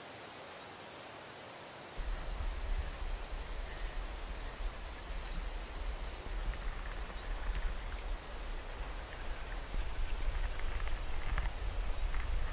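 Outdoor ambience led by a steady high insect drone, with a short very high chirp repeating about every two seconds. From about two seconds in, a low rumble comes onto the microphone, and a few light clicks come near the end.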